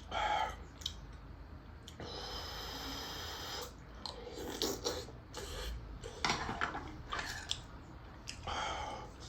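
A person eating ramyun noodles close to the microphone, chewing and slurping in irregular bursts with a few sharp clicks, and one longer slurp about two seconds in.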